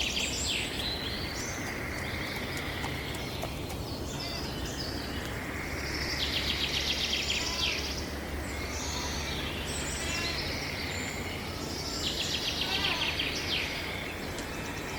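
Small birds chirping, with a rapid high trill that comes back every few seconds, over a steady low background noise.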